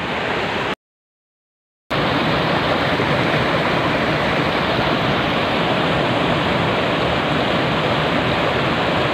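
River water pouring over rocks in a small waterfall, a steady, full rushing noise. It cuts out completely for about a second near the start.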